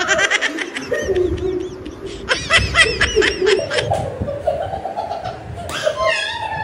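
Playful high-pitched laughter in rapid bursts, twice in the first half, followed by indistinct voices.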